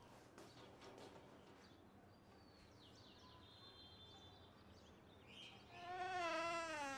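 Quiet background with faint high chirps, like small birds, in the middle. About six seconds in, a louder pitched sound starts, its pitch wavering up and down.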